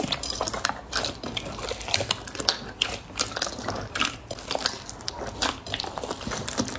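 Hands kneading and squishing clear green slime, giving wet squelches with a dense, irregular run of small sharp pops and clicks.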